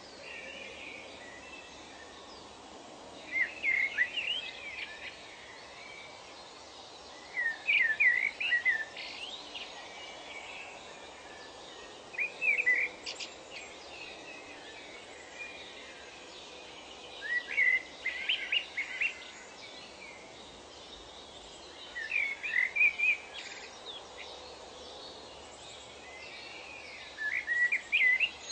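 A bird singing short phrases of quick rising and falling notes, repeated about every four to five seconds, over steady outdoor ambient noise.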